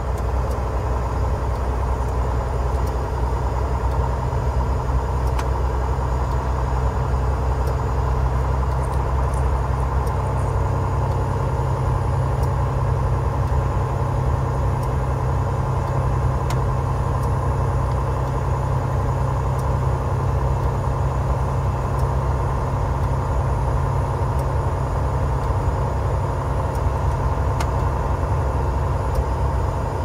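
A loaded semi truck's diesel engine drones steadily, heard from inside the cab, as the truck pulls at low speed in a high gear on a snowy highway.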